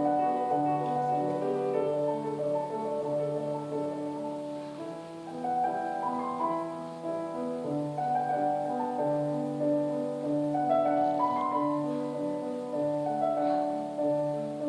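Background piano music: slow, sustained chords and melody in a classical style.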